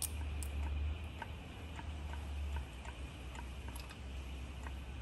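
Hand-pump oil can clicking faintly about twice a second as oil is squirted onto the dry camshafts. A steady insect drone and a low hum run underneath.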